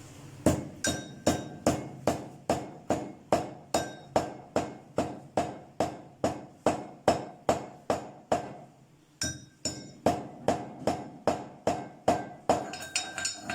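Mortar and pestle pounding pieces of liquorice root and paan root to a coarse crush. Steady strikes come about two and a half a second, with a short pause about nine seconds in, and many strikes leave a brief ringing tone.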